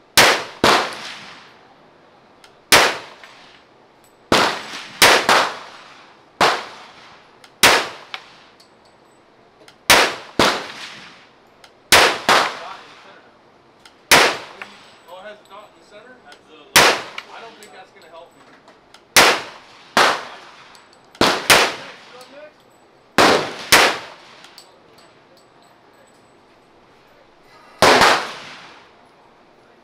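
Carbine gunshots fired one at a time, about twenty in all at uneven spacing, sometimes in quick pairs, each with a short ringing tail. A pause of about four seconds comes before one last shot near the end.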